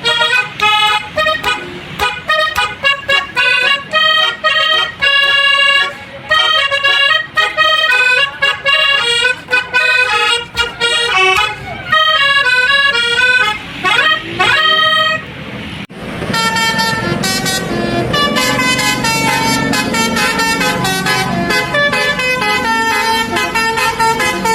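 Bus telolet horns, sets of multi-note air horns, blaring a rapid tune of short, pitched notes, with a couple of rising sweeps near the middle. After a sudden break about two-thirds of the way in, a denser stretch of horn tones continues.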